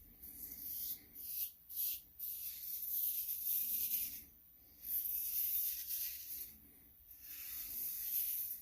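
Rockwell 6s safety razor scraping through lather on a shaved head in a series of strokes: a few short quick passes, then longer strokes of a second or two with brief pauses between them.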